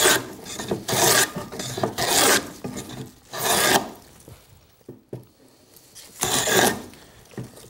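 Lie-Nielsen No. 40½ scrub plane with a curved iron, taking heavy rasping strokes along the edge of a wooden board to bring it down to a scribed line. There are about five strokes roughly a second apart, a pause of about two seconds, then one more stroke.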